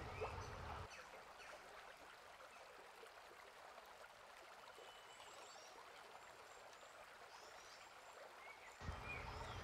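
Near silence: faint background hiss with a few faint, short high chirps in the second half.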